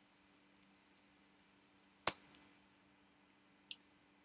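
Computer keyboard clicking: a few light taps and one sharper click about two seconds in, over a faint steady hum.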